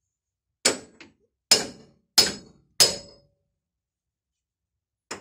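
Hammer striking steel leaf-spring mounting hardware: four sharp, ringing metallic blows about two-thirds of a second apart, then one more near the end.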